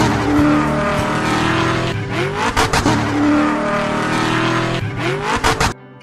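Car engine revving up and down with tire squeal, dropping off suddenly near the end.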